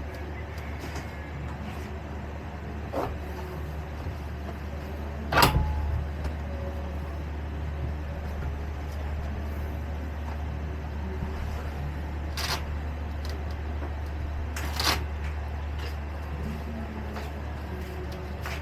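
A few sharp knocks and clicks of recliner sofa parts being handled and fitted together, the loudest about five seconds in, over a steady low hum.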